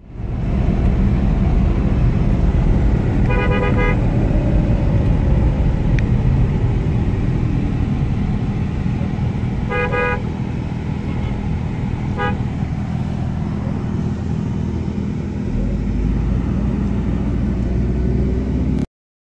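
Motor vehicle engine and road noise rumbling steadily, with three horn honks: one a few seconds in, one about halfway through, and a short one soon after. The sound cuts off abruptly near the end.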